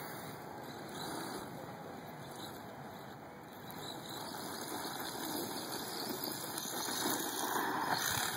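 Radio-controlled truck running across a dusty dirt field: a noisy rush of its motor and tyres on dirt, with no clear engine pitch, growing louder over the last few seconds as it comes closer.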